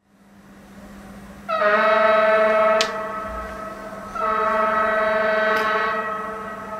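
Blasting warning horn sounding two long steady blasts, the first about a second and a half in and the second about four seconds in, with a sharp click as the first ends: the warning signal before the explosive demolition of a high-rise tower.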